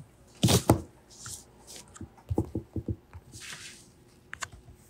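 Handling noises at a desk: a thump about half a second in, then a quick run of about six small clicks a little past two seconds and a brief rustle.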